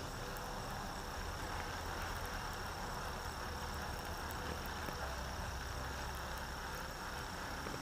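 Steady outdoor background: a low rumble under a thin, steady high-pitched tone, with no distinct event.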